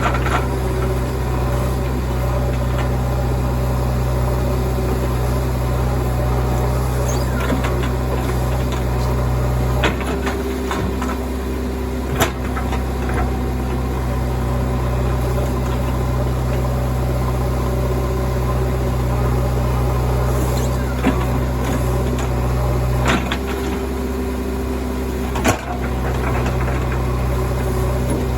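Heavy diesel engine running steadily, its low hum changing about ten seconds in and again near the end, with a few sharp clanks of the machinery.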